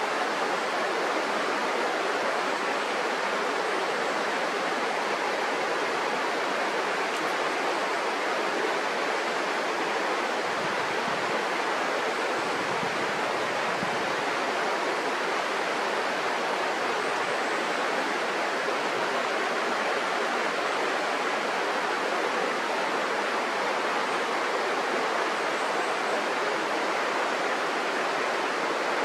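Mountain river running: a steady, even rush of water.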